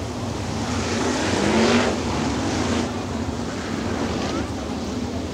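410 sprint cars' V8 engines running as the pack goes by, with one car passing close and loudest nearly two seconds in before the sound eases back to a steady drone.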